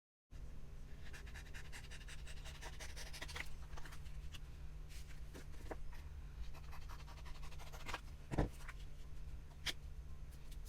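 Faint rustling and light taps over a steady low hum, with a louder knock about eight seconds in and a sharp click a little after.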